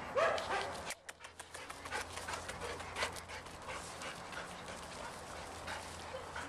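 A large black dog gives a short whine at the start, then pants while jumping up at a person, with a few sharp clicks about a second in and faint rustling.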